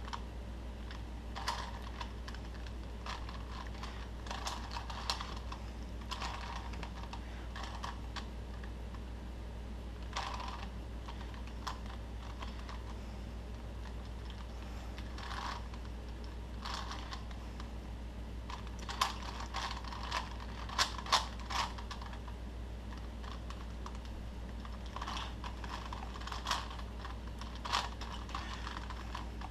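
Plastic Rubik's cube being turned by hand mid-solve: layers clicking and clacking in quick bursts of turns with short pauses between, over a steady low hum.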